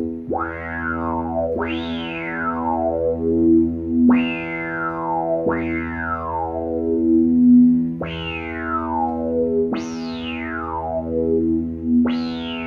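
1980 Oberheim OB-X analog synthesizer playing a held low note with the filter resonance turned up. The filter sweeps up fast on each new note and then glides slowly down, giving a repeated zapping 'wow' about every two seconds.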